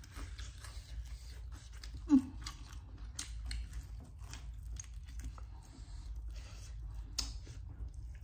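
Crispy Korean fried chicken being bitten and chewed close to the microphone: irregular crisp crunches and mouth sounds, with one sharp, louder sound about two seconds in.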